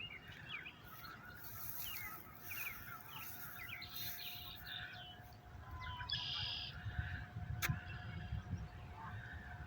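Small birds chirping: many short, quick calls that sweep down in pitch, scattered all through, over a faint low rumble.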